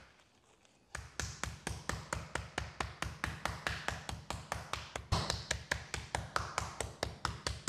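Flat face of a metal meat tenderizer mallet pounding chicken breasts through plastic wrap on a plastic cutting board. The blows are rapid and even, about six a second, starting about a second in, as the meat is flattened to an even thickness.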